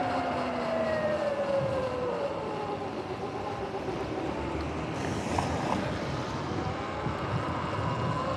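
Sur-Ron electric dirt bike's motor whining, falling in pitch over the first two seconds as it slows, then rising again near the end as it speeds up, over a steady hiss of tyres on wet pavement and wind.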